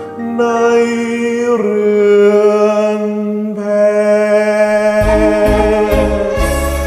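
A man singing long held notes over a karaoke backing track of a slow ballad; a low bass and drum beat comes in about five seconds in.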